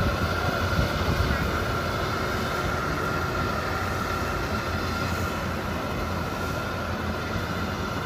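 Bimo rice combine harvester running steadily while it harvests, an even mechanical drone with a constant high whine over a low rumble.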